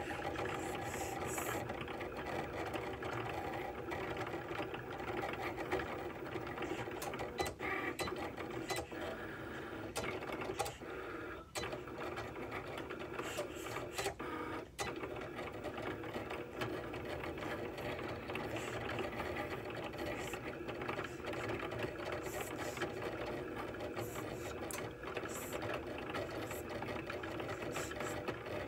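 Cricut cutting machine cutting a printed design out of an iron-on transfer sheet. Its carriage and roller motors whir steadily as the blade traces the thin outlines, with a few brief clicks.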